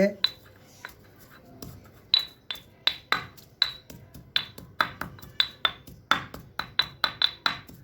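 A pestle striking in a mortar, crushing leaves, ginger and black pepper into a paste. After a couple of sparse taps the strikes come steadily at about three a second, each with a short high ring.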